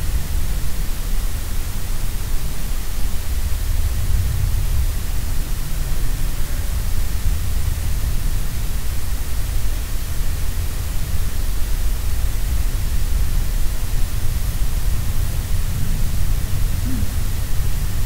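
Steady noise: a constant hiss over a heavier low rumble, with no distinct knock, footfall or call standing out.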